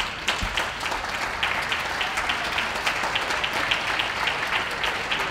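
Crowd of spectators applauding steadily, many hands clapping at once.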